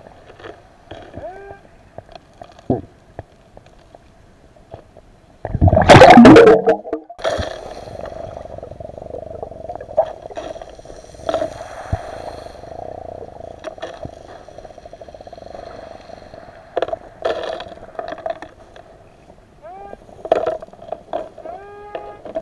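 Underwater sounds: a metal detector's tone humming, with short rising glides, and scattered clicks of pebbles on the seabed. About six seconds in comes a loud rush of bubbling lasting about a second, typical of a diver exhaling.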